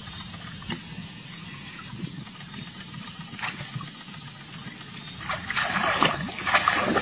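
Shallow pond water splashing and sloshing as a woman wades and grabs in it with her hands, irregular and louder from about five seconds in, over a steady low rumble.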